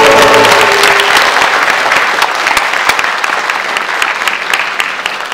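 Audience applauding as the final note of the music fades out about a second in; the applause then slowly dies down.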